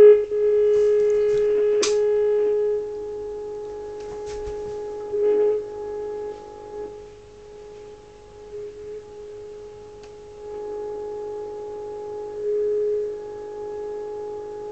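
Steady mid-pitched beat tone from the Uniden 2020 transceiver's receiver: the signal generator's carrier being received while the RF preamp is aligned on the 14 MHz band. The tone rises and falls in loudness several times as the stages are tuned, with a sharp click about two seconds in.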